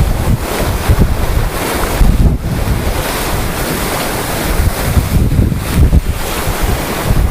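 Wind buffeting the microphone in irregular gusts over the steady rush of water along the hull of a sailing yacht under way.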